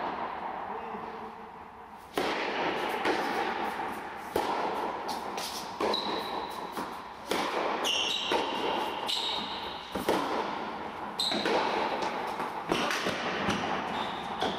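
Tennis rally in an indoor hall: rackets strike the ball in turn, about every second and a half, starting about two seconds in, each hit echoing off the hall walls, with a few short high squeaks between hits.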